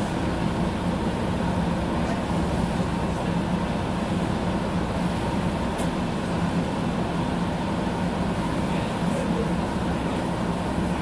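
Steady hum of a Mercedes-Benz Citaro city bus's engine, heard from inside the passenger cabin, with rain and windscreen wipers faintly behind it.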